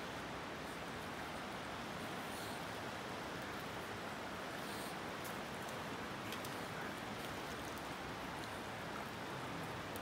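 Steady rush of a flowing river: an even hiss of running water, with a few faint ticks.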